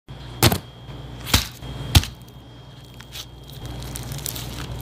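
Bamboo sushi rolling mat (makisu) set down and handled on a wooden board: three sharp clacks within the first two seconds, then a few fainter light knocks.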